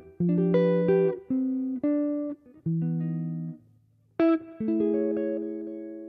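Ibanez hollow-body archtop guitar played solo in jazz chord-melody style: chords struck one at a time and left to ring and fade, with a short pause about two thirds of the way through before the next chords.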